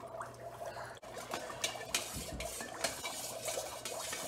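A spoon stirring a bowl of dry-ice soda in a stainless steel mixing bowl, clinking and scraping against the metal in irregular clicks from about a second in, over the bubbling of the dry ice.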